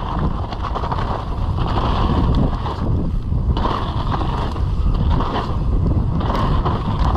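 Mountain bike ridden fast down a dirt jump trail: a steady rush of wind over the microphone mixed with tyre and trail noise, building over the first second.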